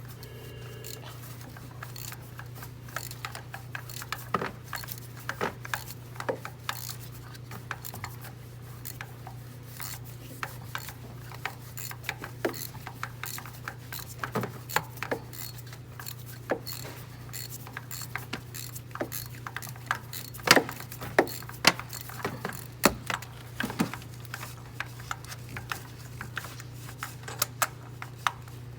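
Ratchet wrench clicking in irregular runs of sharp clicks while a spark plug is worked loose, over a steady low hum.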